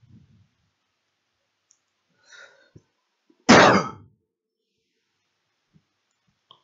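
A single loud cough about halfway through, with a few faint clicks around it.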